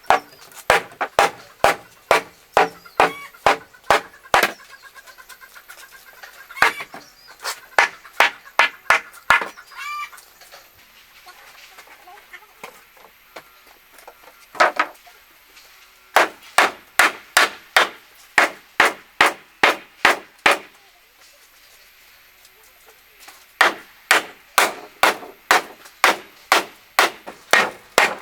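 Repeated sharp chopping blows into wood, about two a second in runs of eight to ten strokes with short pauses between runs.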